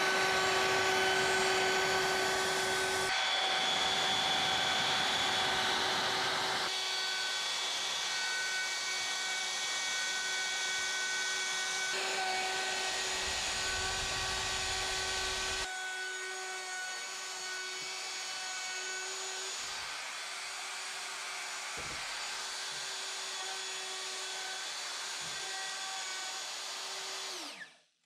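Festool plunge router running with a chamfer bit, cutting a chamfer along the edge of an oak rafter: a steady motor whine over the noise of the cut. Near the end the whine falls in pitch as the motor spins down and stops.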